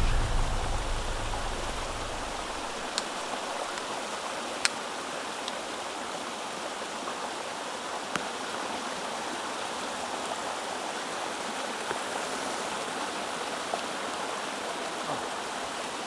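A small mountain stream and waterfall rushing steadily, with a few faint ticks scattered through it. A deep sound fades away over the first two seconds.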